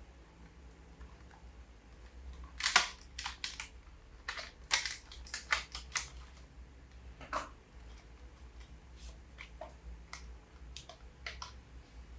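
Irregular sharp clicks and taps of hands working on a laptop's plastic case and parts, with the loudest snap about three seconds in.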